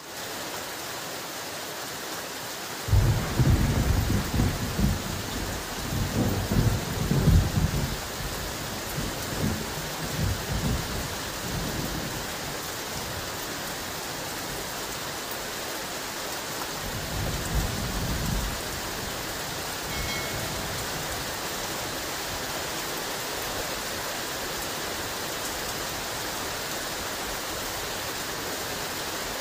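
Heavy rain falling steadily, with a long rolling rumble of thunder starting about three seconds in and dying away over several seconds, and a shorter rumble a little past the middle.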